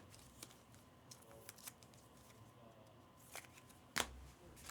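Faint handling of trading cards: soft sliding and light taps, with one sharper click about four seconds in.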